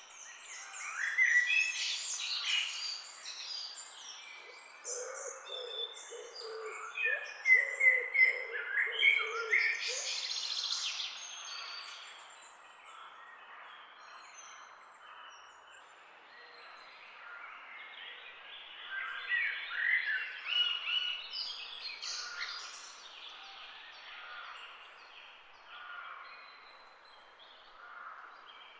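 Several songbirds singing and chirping over a faint outdoor background hiss, in bursts of quick chirps and trills with quieter gaps between them.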